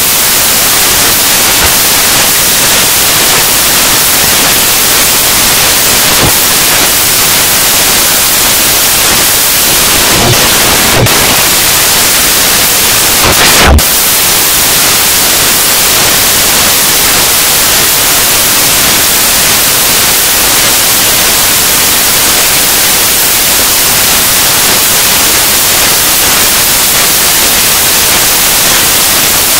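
Loud, steady hiss of static, like white noise, with a short click about halfway through.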